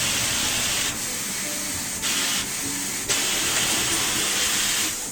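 Compressed air hissing in three bursts, the last and longest for nearly two seconds.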